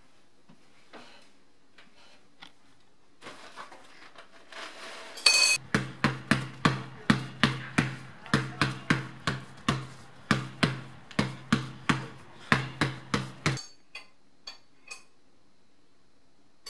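A basketball dribbled steadily for about eight seconds, roughly three bounces a second, each bounce ringing with a low hollow tone. A sharp hit comes just before the dribbling starts. Before and after it, faint clinks of a spoon in a cereal bowl.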